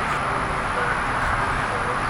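Steady urban background noise of the kind road traffic makes, with faint distant voices.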